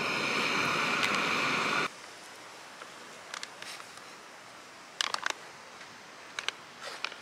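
A steady hiss for about the first two seconds that cuts off suddenly, then the crinkling and tearing of a foil-lined freeze-dried meal pouch being opened by hand, in short bursts, the loudest about five seconds in.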